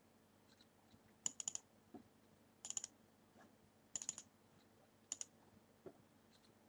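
Computer mouse button double-clicked four times, about a second and a half apart. Each is a quick pair or triple of sharp, faint clicks.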